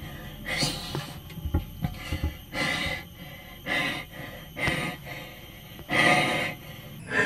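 A man breathing hard and fast, about one breath a second, inside a closed water tank where the carbon dioxide is building up.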